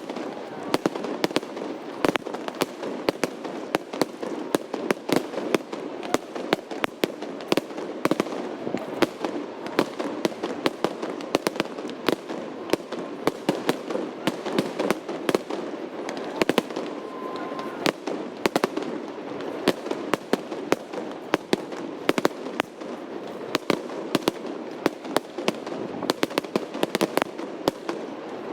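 Large fireworks display: a continuous barrage of sharp bangs, several a second, over a steady noisy background.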